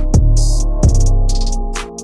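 Electronic dance music with heavy kick drums, deep held bass and a steady hi-hat beat.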